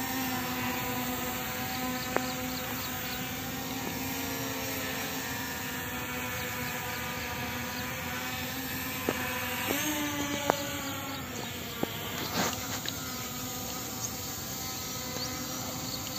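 P18 Pro quadcopter drone's brushless motors and propellers humming steadily while it hovers low. The pitch rises sharply about ten seconds in as the drone climbs.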